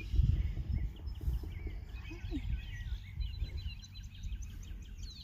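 Low, uneven rumble of wind buffeting the microphone, with several songbirds chirping in the background and one giving a quick trill of repeated notes a little past the middle.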